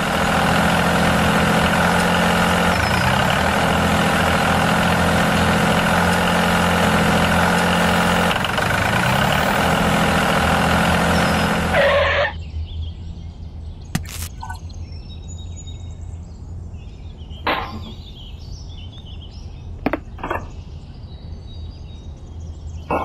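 Small motor of a mini tractor running loudly and steadily, its pitch rising twice, then cutting off suddenly about halfway through. After that, a much quieter background with a few sharp clicks.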